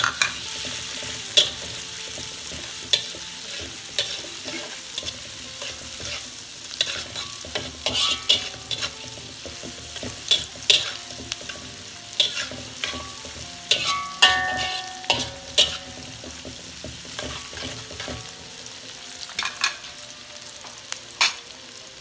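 Garlic, shallots and small dried fish sizzling in hot oil in a metal wok, while a metal spatula stirs, scrapes and knocks against the wok at irregular intervals. The knocks thin out near the end while the sizzling goes on.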